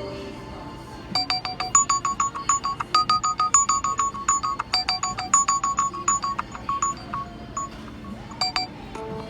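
Nokia 3.1 A smartphone alarm tone: a fast run of short, bright electronic notes, several a second, lasting about six seconds. After a short pause, another alarm melody starts near the end.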